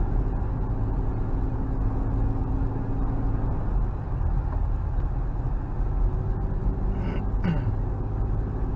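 Steady engine and road noise heard from inside the cabin of a 1992 Toyota Aristo cruising on the road. The car has a 2JZ-GTE twin-turbo straight-six and an Apexi performance exhaust.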